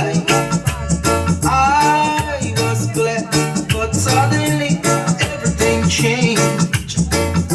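Reggae song with a sung vocal over a heavy bass line and a steady beat, played through a reggae sound system.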